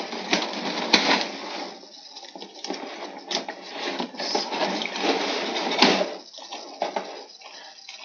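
Clear plastic packaging bags crinkling and crackling as they are handled and pulled apart, with sharper crackles about a second in and again near six seconds.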